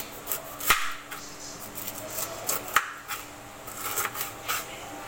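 Kitchen knife slicing the rind off a whole pineapple against a cutting board: a series of short, separate cutting strokes, the two loudest about a second in and near three seconds in, with a few quicker ones near the end.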